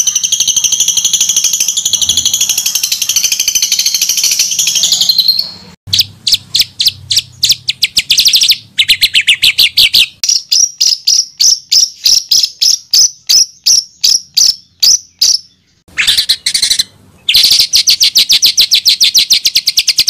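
Edited songbird calls used as a tutor recording for training songbirds: a dense, high buzzing trill for about five seconds, then strings of sharp repeated notes at about four to five a second. After two brief breaks near the end comes a fast run of notes.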